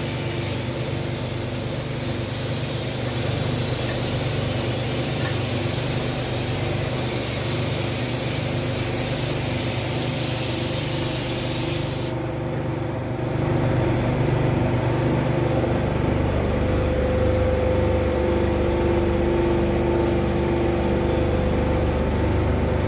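A steady mechanical hum with a hiss of air. The hiss stops about twelve seconds in, and the hum gets a little louder soon after.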